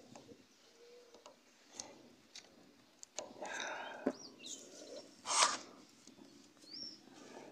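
Light clicks and scrapes of a screwdriver working a hose-clamp piston ring compressor around a piston, with birds chirping now and then. A louder short rush of noise comes about five and a half seconds in.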